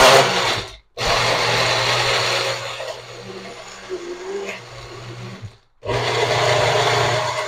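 Personal push-down blender running in pulses as it blends a thick ice cream and peanut butter protein shake, its motor whirring steadily. It stops briefly about a second in and again at about six seconds, then starts again, and it runs softer in the middle stretch.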